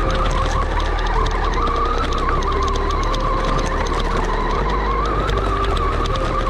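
Brushless electric RC car driving over rough dirt ground: a wavering motor whine with many small ticks from the tyres and chassis. Background music with held notes that change every second or so runs underneath.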